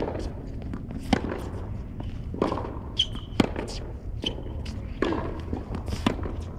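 Tennis ball struck back and forth with rackets in a rally on a hard court: a sharp pock about once every second, with two short high shoe squeaks in the middle.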